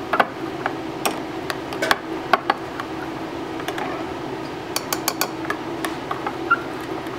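Metal spoon stirring liquid soft plastic in a glass measuring cup, clinking and scraping against the glass at irregular intervals, with a quick run of taps about five seconds in.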